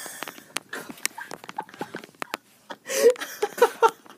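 A child retching and gagging into a toilet: several short strained heaves, the loudest about three seconds in.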